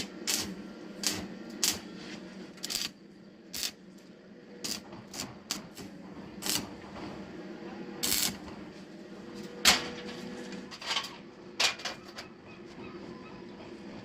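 Irregular sharp metallic clicks and knocks, roughly one every half second to a second, as steel parts are handled and tapped, over a steady low hum.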